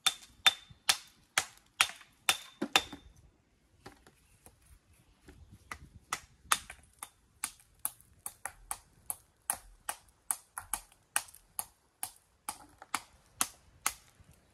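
A hammer striking stone in steady blows, about two a second, the first few with a short metallic ring. After about three seconds there is a pause of roughly three seconds, then a longer run of slightly quicker blows.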